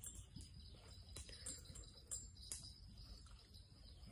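Near silence: faint outdoor ambience with a few soft clicks and faint bird chirps.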